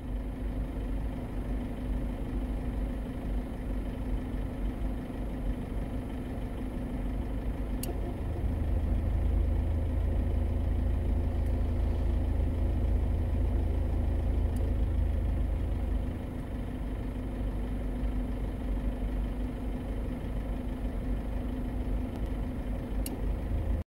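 Steady low rumble of a car heard from inside the cabin, swelling louder for several seconds midway, with a few faint ticks.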